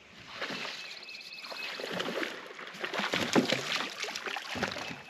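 Hooked bass splashing and thrashing at the surface near the boat as it is reeled in, the splashes growing louder and more frequent through the second half.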